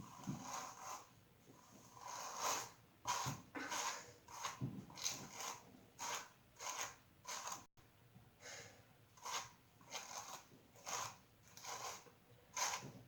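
Hairbrush strokes pulled through long tangled hair, a quick rustling swish about once or twice a second, repeated unevenly.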